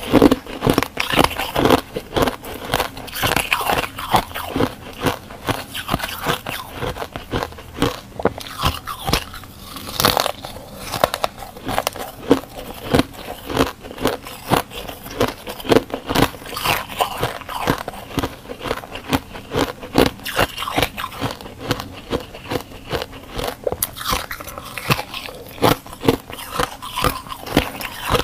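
Close-miked crunching and chewing of flaky freezer frost, bite after bite, with dense crisp crackles several times a second.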